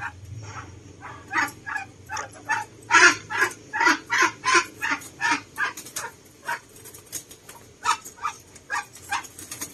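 A dog barking in a rapid run of short barks, about two to three a second, loudest around three to five seconds in.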